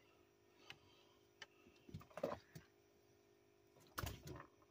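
Near silence with a faint steady hum, broken by a few soft scattered knocks and bumps, the loudest about four seconds in.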